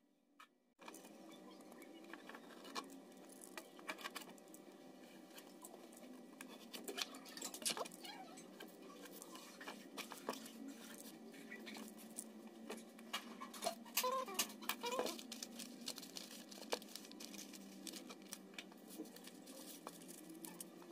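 A sheet of shiny metallic foil crinkling and rustling as it is handled, trimmed with a utility knife and pressed flat by hand: many small irregular crackles and clicks over a faint steady hum.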